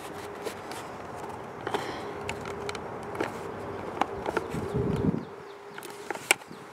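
Light clicks and taps of hands handling a plastic retractable tie-out reel, probing at its cable opening, under a faint steady hum that stops about six seconds in.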